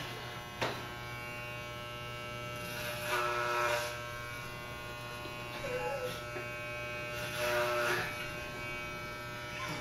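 Electric hair clippers running with a steady buzz. It swells louder and rougher twice, around three and seven and a half seconds in, as the blades are pushed through the hair on a man's head.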